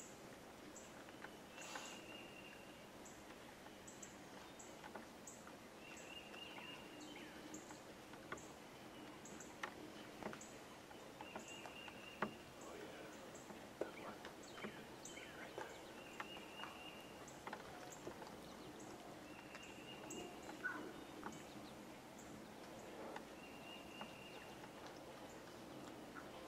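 Faint outdoor birdsong: a short buzzy phrase repeated every few seconds over a thin high note that repeats about twice a second, with a few soft clicks and rustles.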